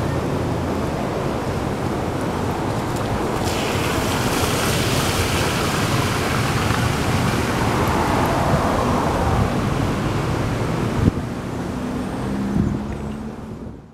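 Steady rushing noise of water gushing from a burst water pipe, mixed with street traffic. The hiss brightens about three and a half seconds in, and a sharp knock comes about 11 seconds in, after which it is quieter.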